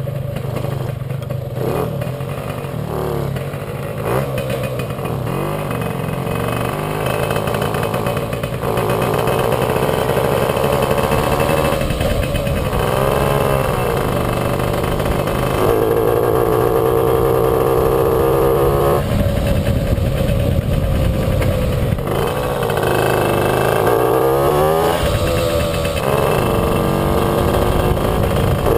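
Puch Maxi moped's small two-stroke single-cylinder engine running under way, its pitch rising and falling several times with the throttle. It stutters at times with ignition misfires, which the rider puts down to a loose contact somewhere in the spark plug cap, plug or ignition lead.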